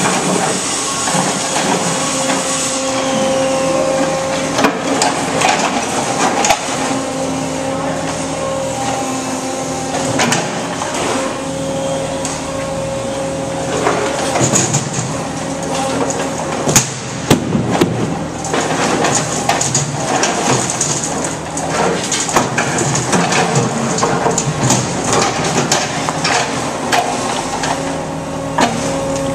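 Brokk 180 demolition machine working its grapple: a steady hydraulic hum that swells and fades as the arm moves, with concrete chunks knocking and clattering as they are loaded into steel trash bins. There is one loud crash about 17 seconds in.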